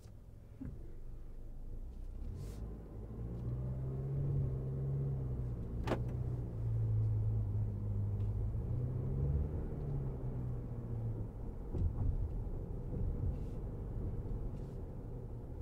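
2023 Toyota RAV4 driving: low engine and road rumble that swells about three seconds in and eases off after about eleven seconds. A single sharp click comes near the middle.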